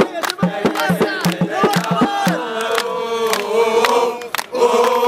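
Crowd of men chanting slogans in unison to steady hand-clapping. The clapping stops about two seconds in while the chant carries on; after a brief pause near the end the chanting starts again, louder.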